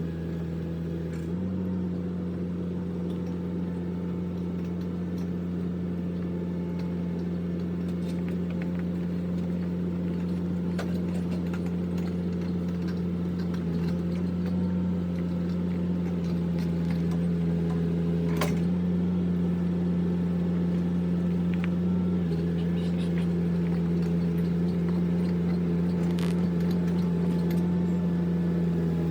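An engine running at a steady speed, with a few faint ticks and one sharp knock about two-thirds of the way in.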